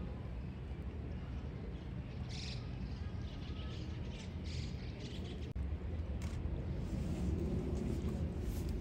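Small birds chirping in short calls over a steady low background hum, with one sharp click about halfway through.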